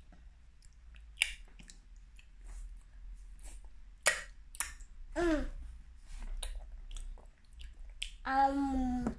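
A toddler chewing a mouthful of pasta with wet lip smacks and sharp mouth clicks. A short falling vocal sound comes about five seconds in, and a held hum-like vocal tone near the end.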